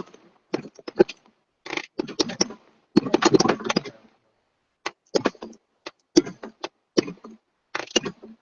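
Firework crackles: about nine short bursts of rapid, dense popping and crackling, separated by brief gaps.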